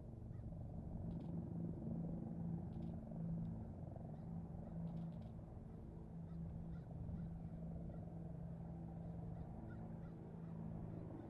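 A steady low engine drone, a pitched hum with a slight pulsing, running throughout.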